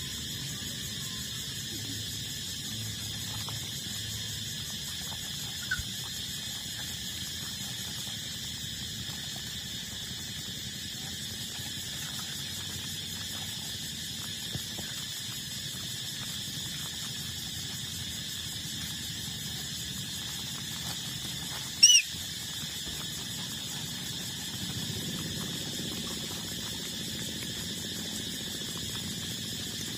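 A puppy gives one short, high-pitched squeal about two-thirds of the way through, with a fainter squeak earlier, over a steady high-pitched background drone.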